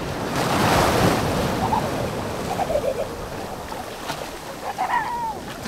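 Small sea waves breaking and washing up on a beach, with one swell of surf about half a second in that eases off over the next couple of seconds.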